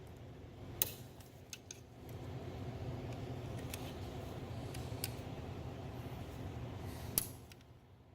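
Hand tools clicking and tapping against the parts of a DEF pump as a stuck piece is worked loose, about half a dozen sharp clicks over a steady low hum.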